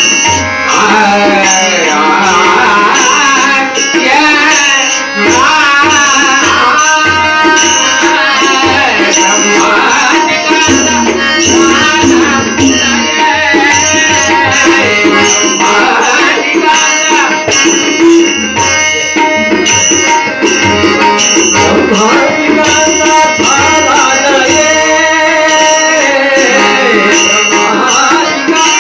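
Bhajan performed live: a male voice singing to harmonium and tabla, with small hand cymbals keeping a steady beat.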